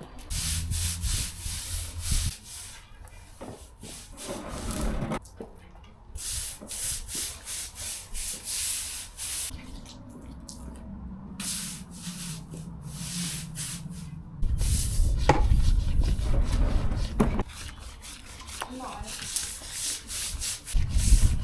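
Brush strokes scrubbing sealant onto imprinted concrete: irregular scratchy, rasping strokes. A low rumble joins about two thirds of the way in.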